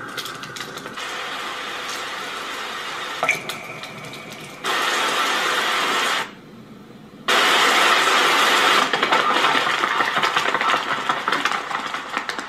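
Sound effects from a short film's soundtrack: a dense, noisy rush that starts abruptly about four and a half seconds in, cuts out for about a second, then comes back louder and fades near the end.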